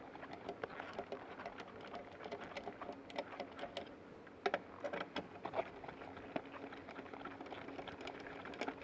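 Faint, irregular metallic clicks and taps of a fully insulated 13 mm nut driver working the fixing nuts off a pyrotechnic fuse, with a few sharper clicks around the middle, over a faint steady low hum.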